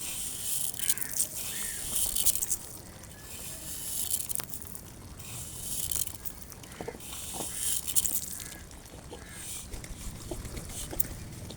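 Outdoor ambience: patches of high hiss, with faint short chirps from small birds and a few light clicks.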